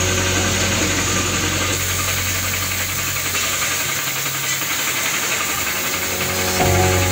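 Air compressor feeding a spray-paint gun, running with a steady mechanical hum and hiss. Background music fades out after about three seconds and comes back near the end.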